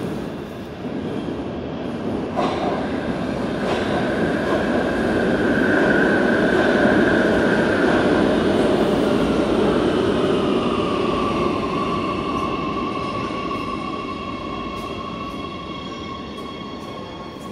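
Oslo Metro MX3000 train running past an underground station platform. Its wheel and motor noise builds to a peak about seven seconds in, and its high whine drops in pitch as it goes by. The noise then slowly fades as it moves away.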